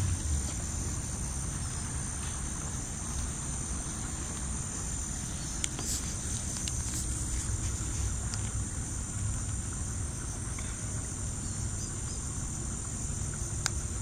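Steady high-pitched chorus of insects, continuous throughout, over a low rumble, with a few faint clicks.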